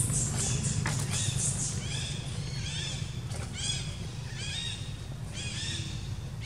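A run of short, high, rise-and-fall animal calls, repeating about two or three times a second, over a steady low hum.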